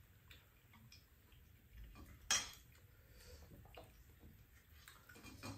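Quiet, scattered clicks and taps of chopsticks against a stainless steel noodle bowl while eating, with one sharper click about two seconds in.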